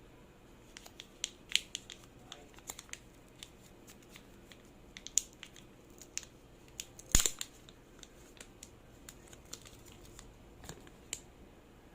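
A phone's retail box and packaging being handled: scattered clicks, taps and crinkles of cardboard and plastic, with a louder tearing or scraping sound about seven seconds in.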